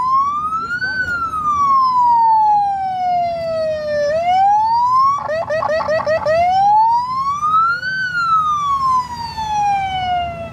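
Police motorcycle siren wailing in slow rise-and-fall sweeps of about four seconds each, broken about five seconds in by a second of rapid yelping, over the low hum of engines in slow traffic.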